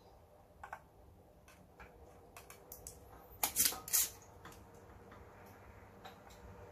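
Light clicks of soldering tools being handled at a circuit board, with a louder cluster of sharp plastic clacks a little past halfway as a spring-loaded desoldering pump is picked up and readied.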